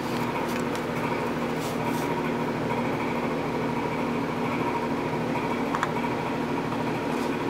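Steady mechanical hum, with a few faint light clicks of metal parts as a splined gear hub is worked loose inside a motorcycle engine case.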